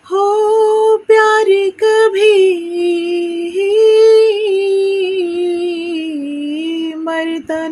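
A woman singing solo with no accompaniment heard, a wordless opening line of long held notes that glide between pitches, broken by short pauses about a second and two seconds in.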